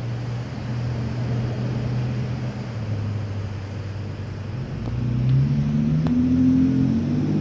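Motor vehicle engine running, its low note changing pitch in steps partway through and growing louder over the last couple of seconds.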